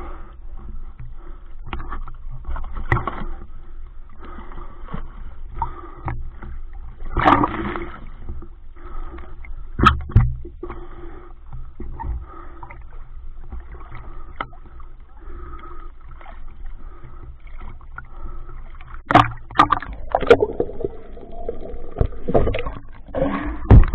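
Muffled underwater noise picked up by a camera in a waterproof housing as a diver swims at night: water swishing and moving, with a sharp knock about ten seconds in and a run of louder knocks and swishes near the end.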